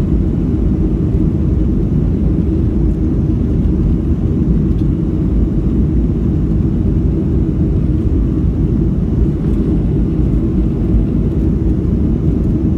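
Steady cabin noise of a Boeing 737-300 climbing after takeoff: its CFM56-3 turbofan engines and the rushing airflow heard inside the cabin as an even, low rumble.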